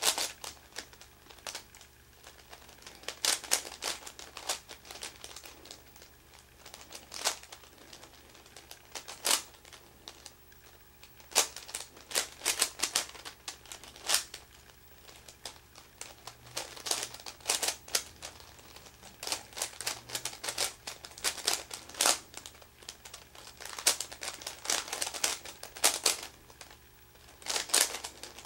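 Meffert's 4x4 puzzle cube being turned by hand: its plastic layers click and clack in quick irregular runs of turns, with short pauses between runs.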